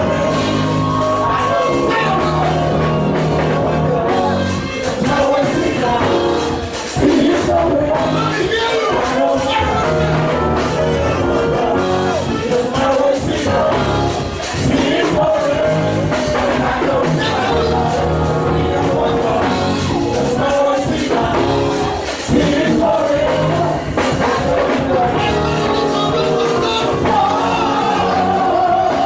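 Gospel music from a band with singing voices over a steady beat and bass, with occasional shouts.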